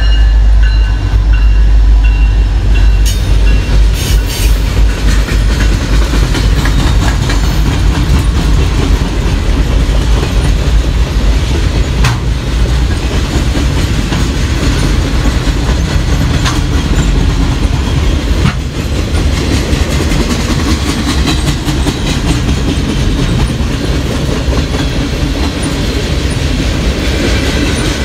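Freight train passing close by. The diesel locomotives rumble past in the first few seconds, then loaded flatcars roll on with a steady rumble and clickety-clack of wheels over the rail, and a few sharp clanks.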